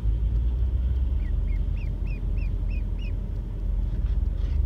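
A run of about seven short, high peeps from baby poultry, coming quickly one after another in the middle, over the steady low rumble of a car on the road.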